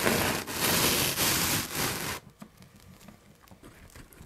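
Handling of a pizza in its cardboard box: a loud rustling, scraping noise for about two seconds as slices are pulled apart, then only a few faint clicks and crackles.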